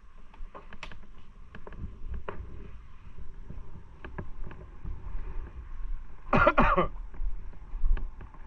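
Motorcycle under way, with a steady low rumble of engine and wind and scattered light clicks. About two-thirds through comes one short, loud vocal sound, like a cough or throat-clearing.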